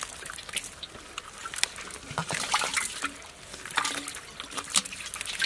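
Irregular wet slaps and crackles from live, freshly caught fish, climbing perch among them, flapping in a wet cast net on a plastic sheet.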